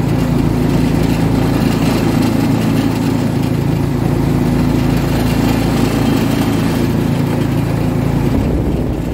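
Small mini buggy engine running steadily under way, heard from on board. Its note shifts and eases off a little near the end.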